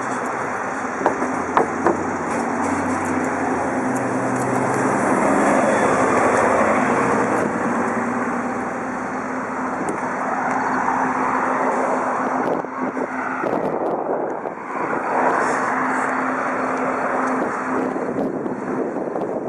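A steady droning hum, one tone held under a wash of noise like distant traffic, with a few sharp clicks about a second in.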